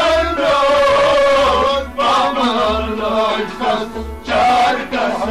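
Male voice singing a Sufi devotional song in a wavering, ornamented melody, over instrumental accompaniment and recurring low drum beats.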